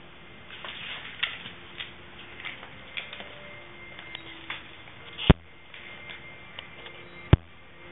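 A Great Dane's claws clicking and tapping irregularly on a tile floor, with two sharp knocks about five and seven seconds in.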